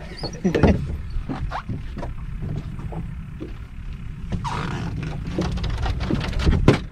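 Wind blowing across the microphone as a steady low rush, with scattered knocks and two louder knocks, one about half a second in and one near the end.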